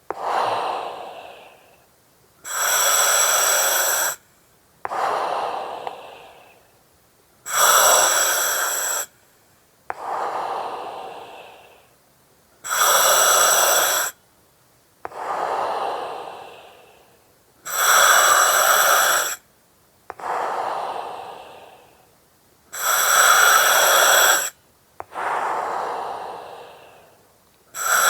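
A person breathing slowly through an oxygen mask and its regulator, about six breaths at an even pace. Each breath has a steady hiss with a whistling edge, about a second and a half long, followed by a breathy exhale that fades away over about two seconds.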